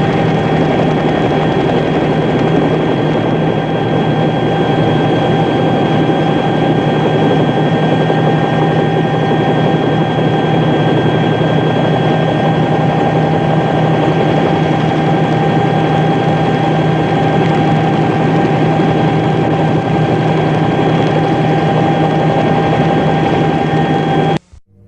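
Steady, loud engine-like drone with several constant whining tones over a rushing noise, unchanging throughout, cutting off abruptly near the end.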